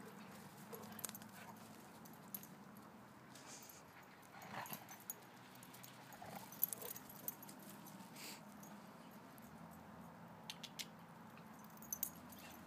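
Two dogs playing together, with a few faint short whines about four and a half and six to seven seconds in, amid scattered light clicks and scuffs.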